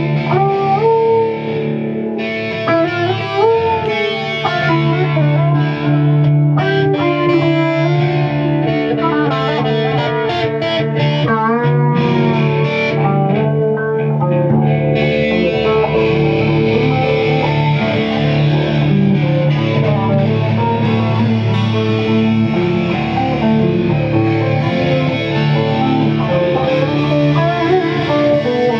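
Instrumental guitar jam: an electric guitar plays a lead of bent, wavering notes over steady acoustic guitar chords. About halfway through the lead gives way to a denser, steadier strummed texture.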